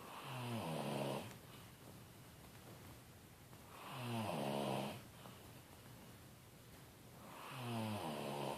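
A man snoring in his sleep: three snores about four seconds apart, each lasting a second or so and falling in pitch as it goes.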